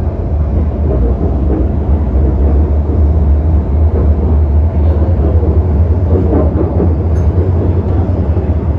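Cabin noise of a Metro Cammell M-Train EMU running on the MTR Kwun Tong Line: a steady low rumble of wheels on rail and traction equipment, getting a little louder over the first couple of seconds.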